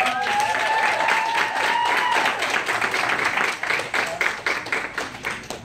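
Small audience clapping, with one voice giving a long, high, slightly rising cheer over the first two seconds; the clapping thins out and stops near the end.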